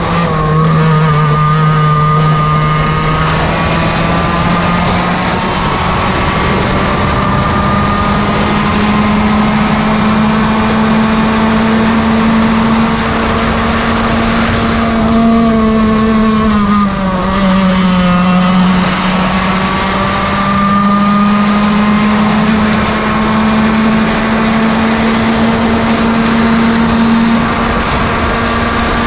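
Yamaha KT100 two-stroke kart engine with can muffler running at high race revs. The pitch climbs slowly, drops sharply about half a second in, dips again around seventeen seconds in, and then climbs back.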